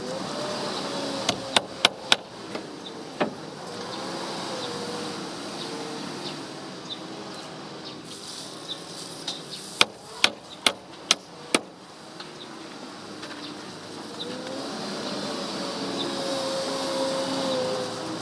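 Hammer driving nails into wooden cover boards: a quick cluster of four strikes about a second in, a single strike soon after, then five strikes in a row around ten seconds in. Under it is a buzzing drone that wavers up and down in pitch, strongest near the start and the end.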